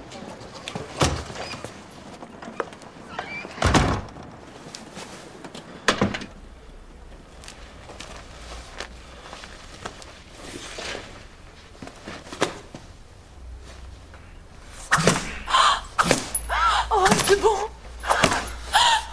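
Door thuds: three sharp knocks or slams over the first six seconds, then voices in the last few seconds.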